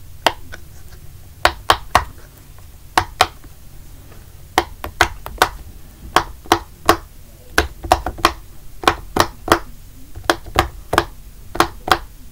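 Silicone pop-it fidget toy with its bubbles being pressed one after another on its 'easy side', each giving a sharp pop, about two or three a second in an uneven rhythm, some in quick pairs. The easy side is the loud one.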